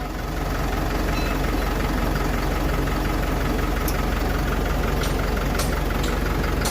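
Hino 300 truck's diesel engine idling steadily, with a few faint ticks over it.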